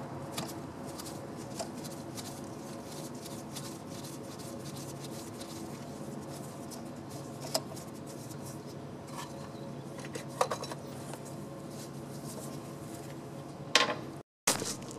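Scattered metallic clinks, scrapes and knocks of hands and tools working a stuck coolant crossover loose in a 6.5 diesel's engine bay, over a steady low hum. A few sharper knocks come in the second half, the loudest near the end, followed by a brief break in the sound.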